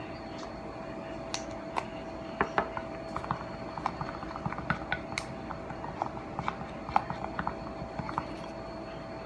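Irregular light clicks, taps and clatter of small plastic containers of glitter and craft supplies being handled on a table, with a faint steady hum underneath.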